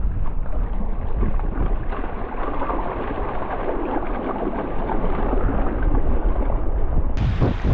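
Wind buffeting the microphone over the wash of shallow surf, with water splashing as a hooked Australian salmon is dragged through the shallows onto the sand.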